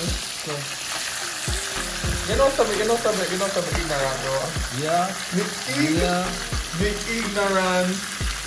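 Whole fish shallow-frying in hot oil in a pan: a steady, dense sizzle, with a metal spatula now and then scraping and turning them in the pan. A melodic voice-like sound, like music or humming, runs over the frying.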